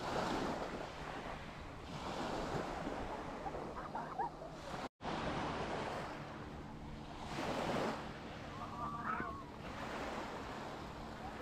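Small waves lapping and washing up on a sandy shore, swelling and fading every couple of seconds.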